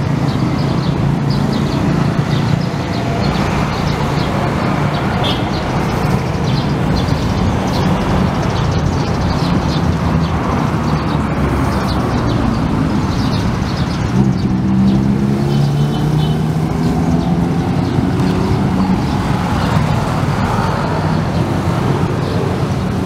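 Street traffic: the engines of passing motorbikes and motorised tricycles running steadily. About two-thirds of the way in, one engine grows louder and rises in pitch.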